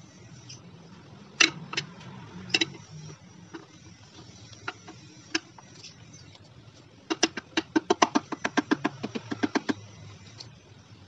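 Sharp metal knocks and taps as the final-gear cover is fitted onto a Yamaha Mio Z scooter's transmission case: a few single knocks, then, about seven seconds in, a quick run of about twenty taps, roughly eight a second.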